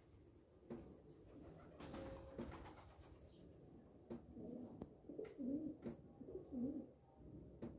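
Dove cooing: a series of low coos in the second half.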